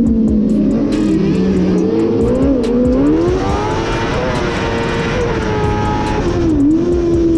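Onboard sound of a kartcross racer's Suzuki 600 engine under racing load, its pitch sagging early on, climbing as it revs up about three seconds in, and dipping briefly near the end. Scattered short clicks run over it.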